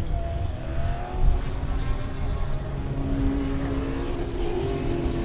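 Several Sports Sedan race car engines at high revs driving past, a rising engine note in the first second, then steady notes over a low rumble.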